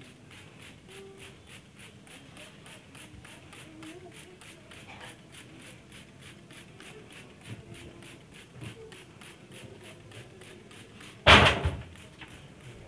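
Faint misting of a hand trigger spray bottle on a wire birdcage, over a steady, rapid faint ticking. A single sudden loud bang comes about eleven seconds in.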